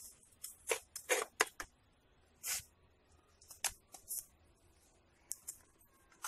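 Short, irregular scrapes of a small curved metal blade scratching and loosening dry potting soil in a clay pot, about a dozen quick strokes with gaps between them.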